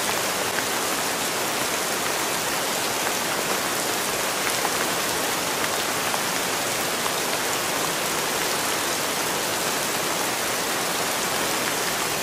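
Steady rain falling on wet concrete pavement: an even hiss with scattered faint drop ticks.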